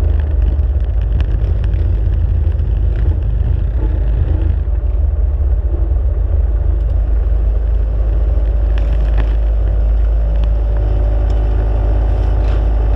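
ATV engine running as the quad rides at low speed, picked up by a camera mounted on the machine, with a heavy low rumble on the microphone. In the last few seconds steady engine hums appear as it pulls up among other quads.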